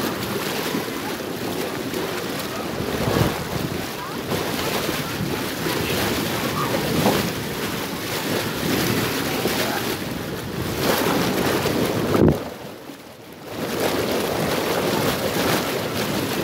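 Pool water splashing and churning close to the microphone as a swimmer thrashes through it, with wind buffeting the microphone. About twelve seconds in, a sharp splash is followed by a sudden brief hush of about a second.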